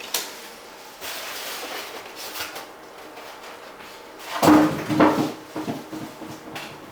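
Packaging and kit parts being handled and moved during unboxing: a click at the start, a sliding rustle, then a cluster of louder knocks and scrapes about four and a half seconds in.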